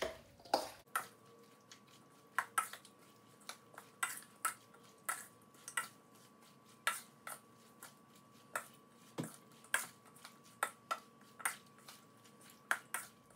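Hands tossing sliced cucumbers in a stainless steel mixing bowl: irregular light clicks and taps against the metal, about one or two a second, as the wet slices are turned over. A faint steady hum lies underneath.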